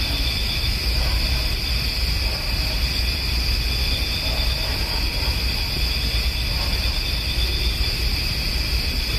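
A steady chorus of night insects, a continuous shrill at several high pitches, over a low, even rumble.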